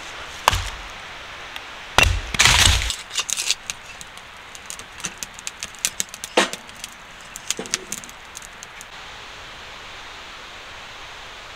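Hatchet chopping firewood on a block: two sharp strikes about half a second and two seconds in, the second followed by a brief clatter. Then scattered crackles and snaps of a wood fire burning in a small tent stove, settling into a steady faint hiss near the end.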